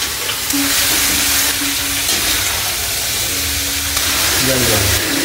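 Chopped vegetables for a sabzi sizzling steadily in a pan on a gas burner, stirred with a spoon.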